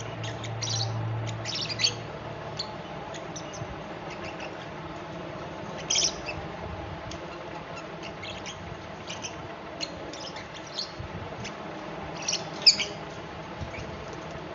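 Fischer's lovebird chirping and squawking in short, sharp high calls, with louder bursts about 2 and 6 seconds in and again near the end.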